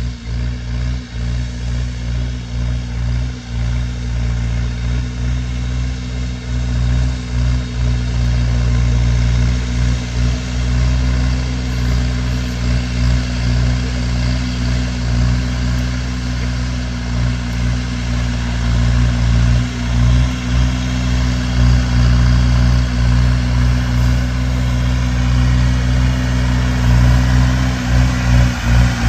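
Massey Ferguson 290 tractor's diesel engine running steadily, pulling a plough, a little louder toward the end.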